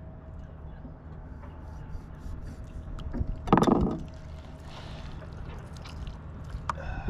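Hands working the innards out of a filleted striped bass carcass on a plastic cutting board. There is one brief loud burst of noise about three and a half seconds in, over a steady low hum.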